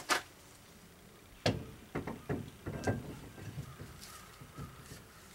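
Metal clunks and scraping as a brake drum is worked over the new shoes onto the splined axle of a 1970 VW Bug: a sharp clunk about a second and a half in, then a run of lighter knocks and scrapes over the next couple of seconds.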